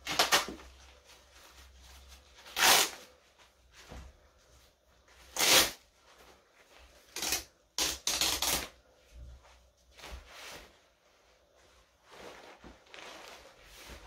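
Torn shiny wet-look leggings material rustling and crackling as strips are pulled up and dropped. There are about half a dozen loud bursts in the first nine seconds, then softer rustling.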